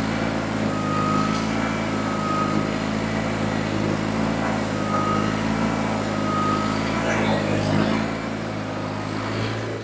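John Deere 318 garden tractor's engine running steadily while its hydraulics swing the front 54 blade across and back, with a faint whine coming and going several times. With the rear-cylinder lock-out valve open, the blade turns slowly and not smoothly.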